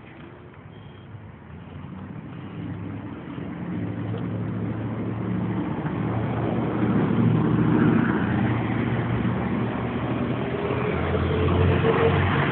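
Engine of a large road vehicle approaching and passing close by: a low engine hum that grows steadily louder over the first half, stays loud, and rises slightly in pitch near the end as the vehicle goes past.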